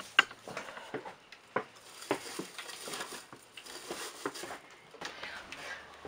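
Scattered light knocks and clicks of things being handled and moved about in a cluttered shed, with one sharper knock just after the start.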